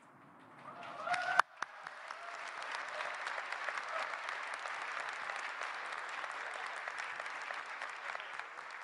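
Large audience applauding, building up over the first couple of seconds into steady, sustained clapping.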